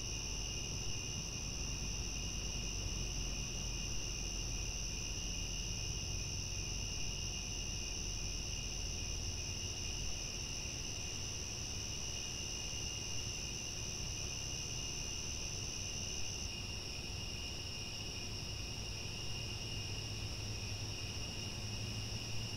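Crickets chirping steadily in a continuous chorus, their high trilling held at an even level.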